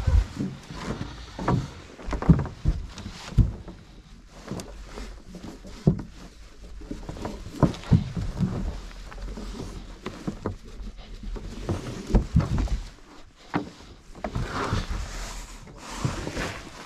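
Anchor rope being worked by hand over the riveted metal bow of a small boat: irregular knocks and thumps on the hull as the rope and anchor gear are handled.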